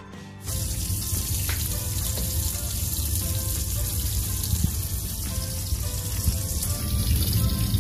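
Fish fillets frying in hot oil in a skillet, a steady hiss that starts suddenly about half a second in, with faint background music underneath.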